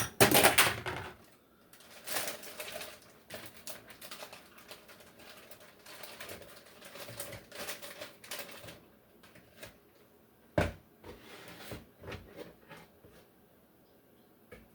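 Kitchen handling noises: a loud rustle or clatter at the start as a plastic bowl lid comes off, then a run of light clicks and rustles, and one sharp knock about ten and a half seconds in.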